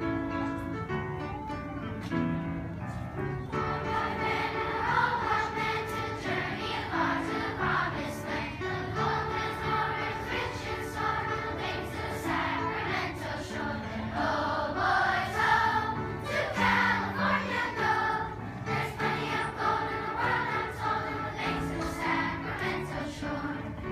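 A large group of children singing together as a choir over an instrumental accompaniment, the voices coming in about three and a half seconds in.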